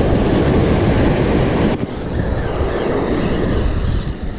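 Wind buffeting the microphone in a steady low rumble, with surf washing behind it.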